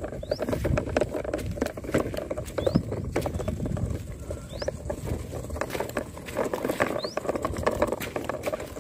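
Remote-controlled toy pickup truck driving over wet dirt and small stones: a busy, crackling patter of its tyres and drivetrain.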